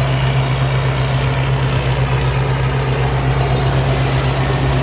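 Thai Seng rice combine harvester running steadily while harvesting, a deep even engine hum with a thin high-pitched whine over it.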